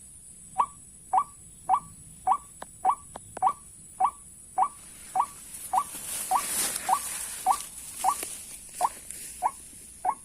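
White-breasted waterhen call: a short note repeated steadily, a little under twice a second. A broad rushing hiss swells and fades in the middle.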